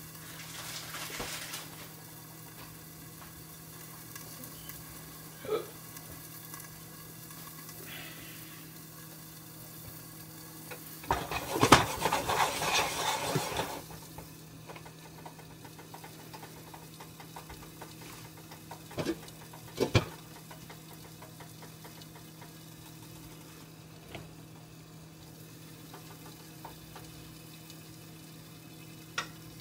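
Food being stirred in a pot on the stove over a faint sizzle and a steady low hum. A utensil clatters and scrapes against the pan in a quick run of strokes for about three seconds midway, and a few single clinks and knocks come later.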